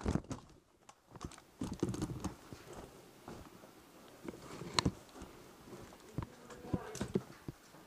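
Scattered, irregular light clicks and taps of a player's footsteps and gear while moving on foot, with a sharper click about five seconds in and another about seven seconds in.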